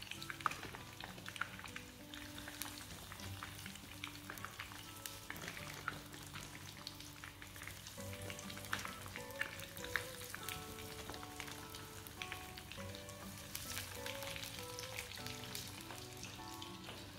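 Chicken nugget sticks deep-frying in hot oil in a pan, with a steady sizzle and many sharp pops and crackles. Background music plays underneath.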